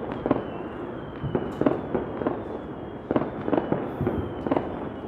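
Fireworks and firecrackers going off all around: a continuous crackling din with sharp bangs every half second or so, some louder and nearer than others.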